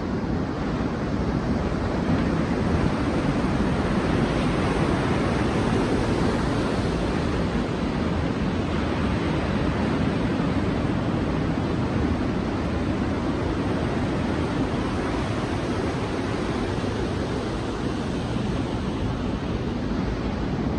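Sea waves washing on a beach: a steady rush of surf that swells a little a few seconds in and eases off later.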